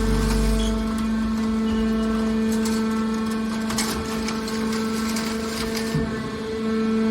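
Hydraulic scrap-metal press baler running: a steady hum from its pump and motor, with scattered metallic rattling and clicks through the middle.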